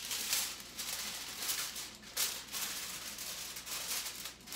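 Aluminium foil crinkling and rustling in repeated bursts as hands fold it into a packet around a piece of fish.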